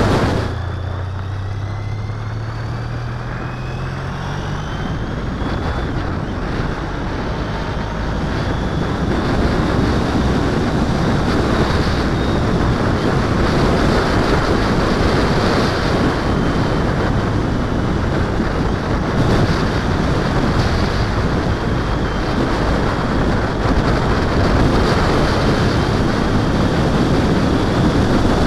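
Motorcycle engine pulling with its note and a faint whine rising together for the first few seconds, then wind rush on the camera's microphone that grows louder as the bike gathers speed.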